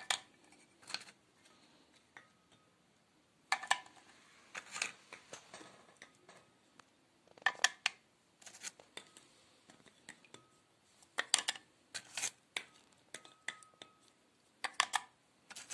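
Light clicks and taps in scattered clusters as milk-soaked petit-beurre biscuits are dipped in a plate of milk and set down in rows in a glass baking dish.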